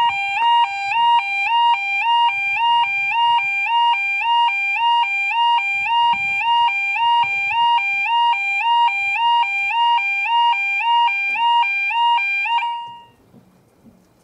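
Level crossing audible warning alarm sounding its loud two-tone yodel, a rapid up-and-down alternation between two pitches repeating about twice a second, then cutting off suddenly near the end.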